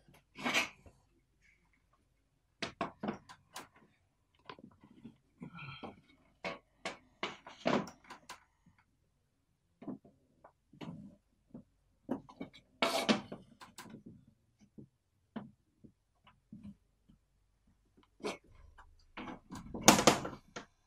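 Chalk scraping in short strokes along a long ruler on a blackboard, with scattered knocks and clicks as the ruler is set against the board and moved.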